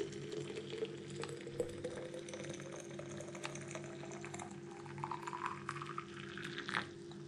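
Boiling water poured in a steady stream from an electric kettle into a thermos flask. The pitch of the filling rises as the flask fills up.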